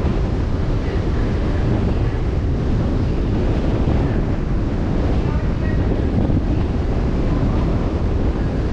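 Steady wind buffeting the microphone over the wash of open-sea water past a moving boat, a constant low rumble with no distinct events.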